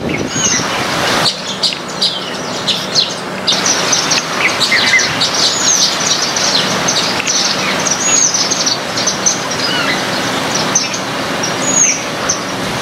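Small birds chirping: many short, quick arched chirps from several birds, overlapping and continuous, over a steady background hiss.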